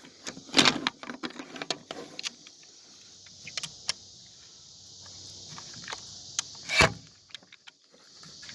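Scattered metal clicks and clinks of a 13 mm wrench working a battery terminal nut loose, with one louder clank about seven seconds in, over a steady high hiss.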